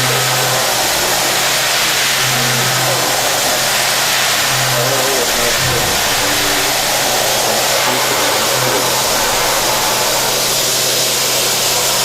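CNC machining center running: a steady mechanical noise with a heavy hiss and a low hum that swells and fades every second or two.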